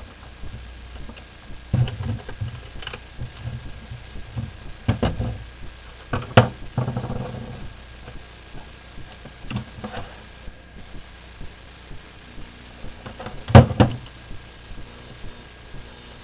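Irregular knocks and clicks of small hard objects being handled, about five louder ones, the loudest near the end, over a faint steady hum.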